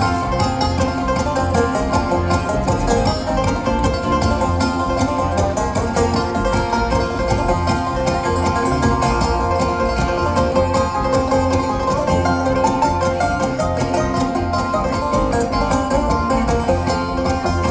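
Live bluegrass band playing: a five-string banjo, mandolin, acoustic guitar and upright bass picking together at a steady, lively tempo.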